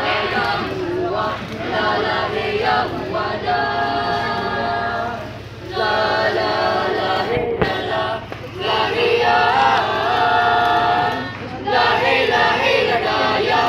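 A small mixed group of voices singing together without accompaniment, in long held notes with short breaks between phrases.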